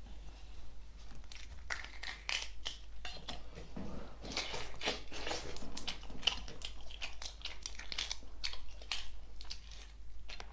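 Close-miked crackling, tearing and crunching of shellfish being pulled apart and bitten, in quick irregular clicks and crackles with no steady rhythm.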